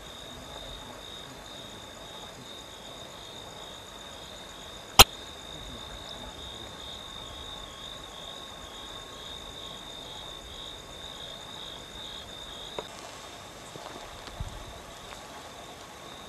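Night chorus of calling frogs: a steady, rapidly pulsing high-pitched trill that drops away about three-quarters of the way through. A single sharp click about five seconds in is the loudest sound, with a few fainter clicks later.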